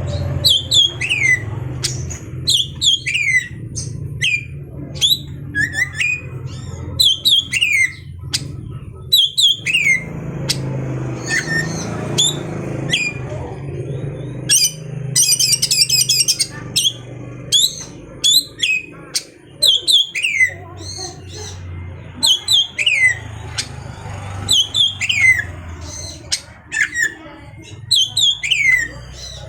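Oriental magpie-robin (kacer) calling: short, sharp notes that slide down in pitch, repeated about once a second, with a fast high trill about fifteen seconds in. A steady low hum runs underneath.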